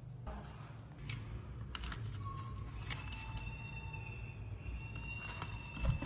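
Cardboard box and a plastic powder tub scraped, rustled and knocked as a small monkey digs its hand into the chocolate malt powder: scattered clicks and scratches, with a louder knock near the end.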